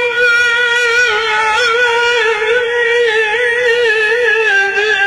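Amplified voice holding one long, high sung note with a wavering vibrato in the Tunisian salhi folk style, dipping slightly in pitch near the end.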